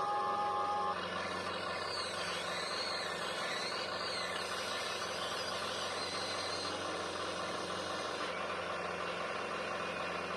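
Radio-controlled construction models (a Huina 580 CAT 336D excavator and a CAT 966M wheel loader) working, with steady mechanical running. Between about two and five seconds in, a high electric-motor whine rises and falls several times as the models move.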